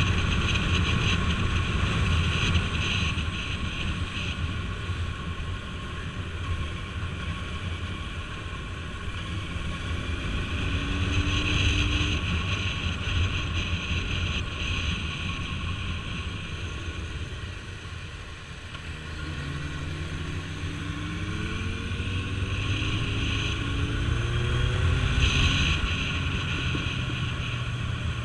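Motorcycle riding at speed: steady engine drone and rush of wind. In the second half the engine pitch climbs in several rising steps as it accelerates through the gears.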